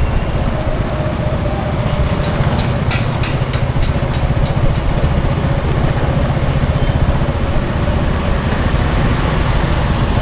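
Steady road traffic noise dominated by a nearby engine running, with a few short clicks about three seconds in.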